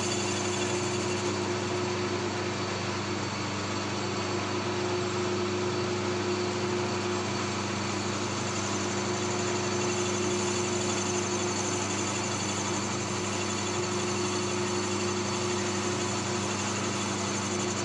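Victor metal lathe running steadily, its motor and belt-driven spindle giving an even hum with a few steady tones, while it faces the top of a freshly relined motorcycle cylinder block.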